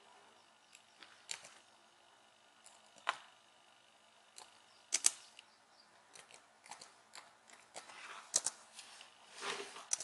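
Laptop keyboard keys clicking, a dozen or so separate, irregular presses as a password is typed in. A rustle of handling near the end.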